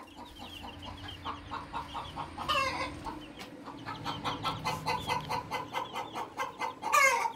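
A brood of young chicks peeping, a steady run of short calls several times a second, with two louder, longer calls about two and a half seconds in and near the end.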